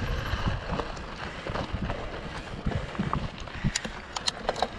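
Mountain bike rolling over stony dirt: a low rumble of tyres and wind on the microphone, with irregular sharp clicks and rattles from the bike, busier in the second half.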